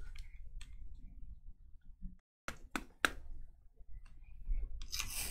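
Trading cards being handled on a table: a few sharp clicks and taps as cards are set down and sorted, with a brief rustle near the end.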